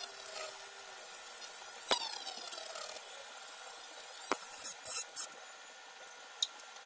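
Fiber laser cutting through a pistol slide: a steady high hiss from the beam on the metal, broken by sharp snaps about two seconds in, again past four seconds, a quick cluster near five seconds and one more near the end.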